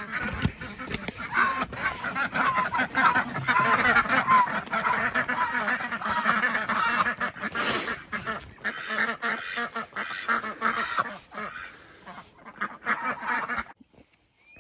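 A flock of domestic ducks quacking, many calls overlapping, dying down near the end. There is a short rush of noise about halfway through.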